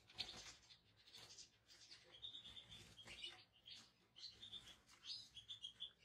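European goldfinches twittering faintly: short runs of quick, high chirping notes, with a few soft rustles of movement near the start.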